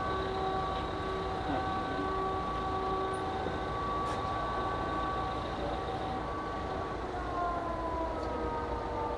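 Boeing 737-800's CFM56 jet engines on short final: a steady multi-tone whine over a low rumble. Near the end the whine slides down in pitch as the engines spool down for the flare and touchdown.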